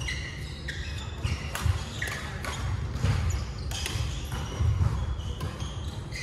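Badminton rally on a wooden sports-hall court: sharp racket strokes on the shuttlecock and short shoe squeaks on the floor, a handful of each, with footfalls and the hall's echo.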